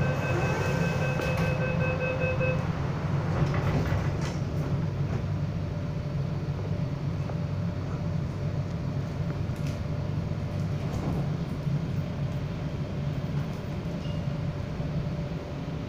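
Inside an MTR K-Train metro carriage: the door-closing warning beeps sound for the first couple of seconds, then the train runs on with a steady low rumble.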